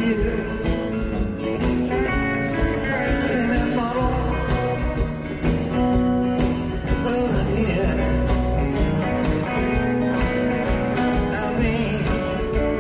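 Live band music with a steady beat, with an electric keyboard played among the instruments.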